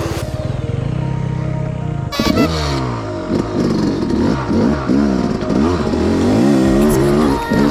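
Yamaha YZ250X 250 cc two-stroke single-cylinder dirt bike engine. It runs at a steady low note, then from about two seconds in it revs up and down again and again as the throttle is worked on the trail.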